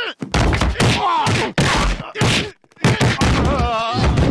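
Cartoon fight: a rapid series of punches and thuds mixed with pained groans and yelps, with a wavering cry near the end.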